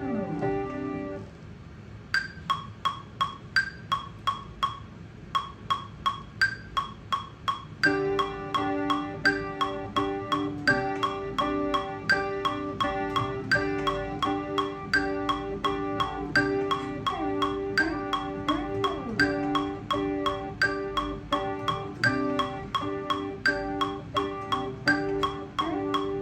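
Electronic instrumental music. A held chord with a falling glide ends in the first second. About two seconds in, a steady pattern of sharp, pitched percussive hits starts, a few per second. At about eight seconds, sustained chord layers join underneath, with occasional sliding pitch bends.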